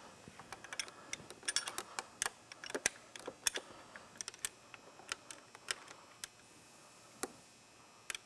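Light, irregular metal clicks and taps of a wrench working the pinch bolt on a motorcycle's lower clutch-cable bracket as it is tightened. The clicks come thick and fast for the first few seconds, then thin out to a few isolated ticks.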